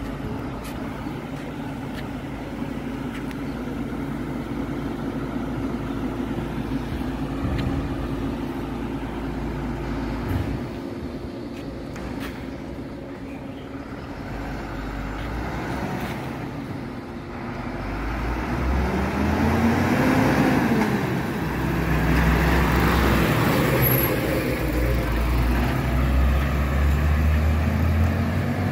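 MAN TGM 18.290 recycling truck's diesel engine idling steadily, then from about eighteen seconds in running louder, its engine speed rising and falling twice as it revs up and settles.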